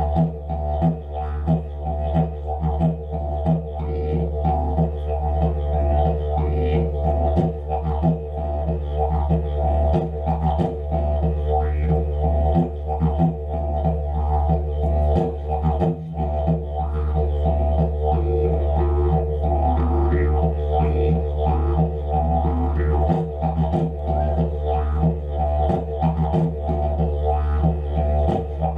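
Didgeridoo played solo: a continuous low drone with quick rhythmic pulses and shifting overtones above it.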